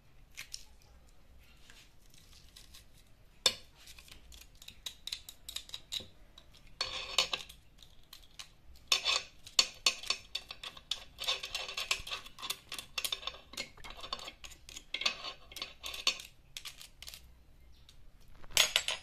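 Metal utensil clinking and scraping against a cooking pot in quick, uneven clicks. The clatter is sparse at first with one sharp knock, then busy through the middle, with a short burst near the end.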